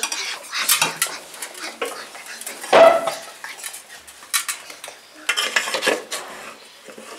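Metal serving utensils scraping and clinking against an aluminium cooking pot and a plate as meat is dished out, in irregular knocks and scrapes, with one loud ringing clank about three seconds in.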